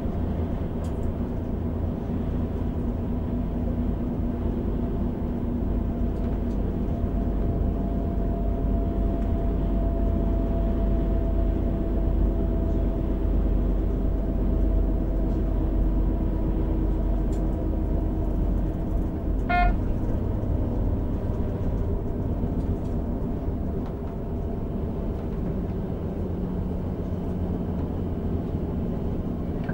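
Class 642 Desiro diesel railcar heard from its driver's cab while running along the line: a steady drone of engine and wheels on rails with a faint hum. A short, high beep sounds once, about two-thirds of the way through.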